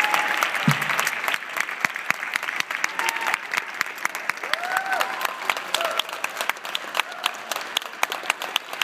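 Audience applauding, with a few voices calling out in rising-and-falling whoops over the clapping. The applause thins after about three seconds into more separate claps.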